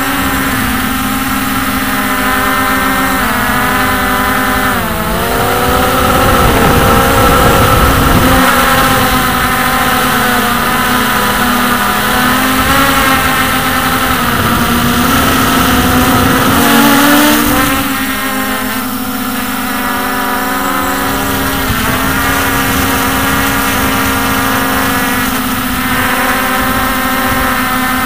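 Hubsan X4 H501S quadcopter's brushless motors and propellers whining close up. Several pitches slide up and down together as the throttle changes, dipping about five seconds in and rising near the middle.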